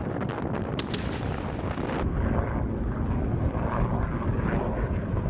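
A rapid run of sharp cracks and bangs from ordnance hitting a desert range, loudest about a second in. About two seconds in it cuts to the steady beating rumble of an AH-1Z Viper attack helicopter's four-bladed rotor and engines in low flight.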